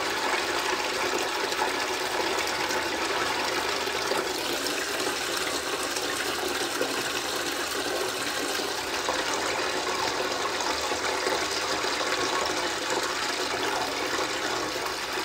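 Water welling up out of a blocked floor drain and spilling across a flooded tiled floor: a steady, unbroken rush of water, the drain backing up.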